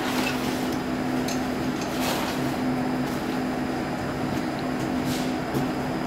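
Steady electrical hum inside a Class C10 electric railcar standing at a platform, from its onboard equipment, with a few faint clicks.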